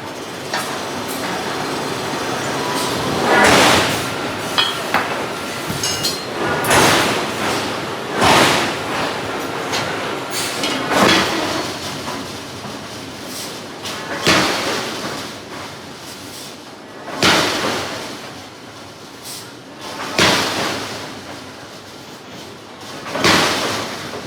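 Hydraulic forging hammer striking hot steel in a slow, steady rhythm, one heavy blow about every three seconds, over steady shop noise.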